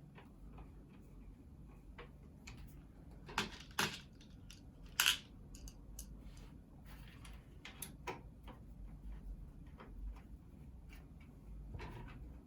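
Handling noise of small hard PC parts and screws: scattered light clicks and taps, with a pair of louder knocks about three and a half seconds in and a sharper clatter about five seconds in.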